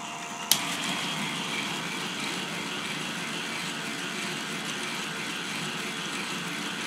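K'nex motor-driven gear mechanism running: the motors turning plastic gears and differentials with a steady mechanical whir. A sharp click comes about half a second in, as a second motor is switched on, and the running grows a little louder after it.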